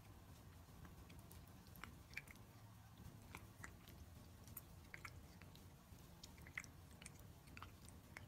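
Cat grooming: licking its paw and washing its face, heard as faint, irregular wet tongue clicks and smacks over a low steady room hum.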